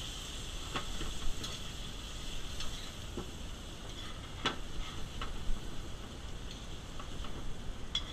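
Food frying in butter in a small pan, with a faint steady sizzle and scattered metallic clicks and taps as a metal spoon turns the pieces against the pan.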